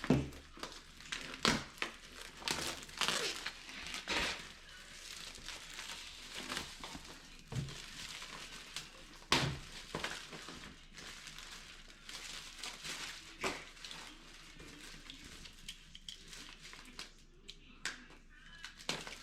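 Hands handling computer-part packaging: crinkling and rustling with many scattered short clicks and knocks, the sharpest about a second and a half and nine seconds in.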